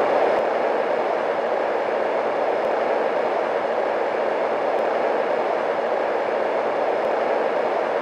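Marpac Dohm fan-based white noise machine running: a steady, even whoosh of air with no change in pitch or level.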